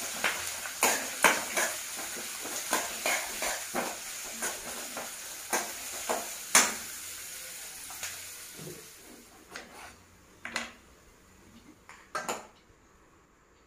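Mustard seeds, peanuts and curry leaves frying in hot oil in a metal kadai, sizzling while a spoon stirs and scrapes the pan with many quick clicks against the metal. The sizzle fades after about eight seconds, and a few knocks of a spoon on metal pots follow as cooked rice is scooped from a pressure cooker.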